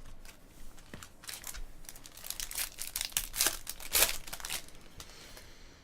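Crinkling and rustling of plastic and card stock as trading cards and their packaging are handled, in a run of irregular crisp crackles.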